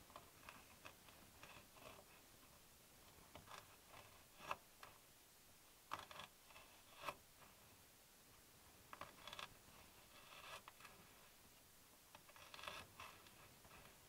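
Knife slicing a garlic clove on a wooden cutting board: faint scattered taps and knocks of the blade on the board, a few sharper single knocks, then runs of quick small taps as it chops, with a couple of runs late on.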